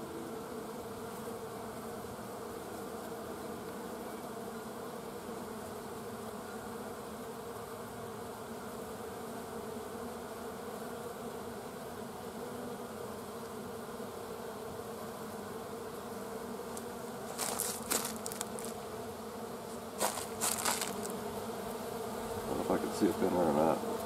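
Many honeybees in flight, a steady buzzing hum. A few sharp clicks come in two short clusters about three-quarters of the way through.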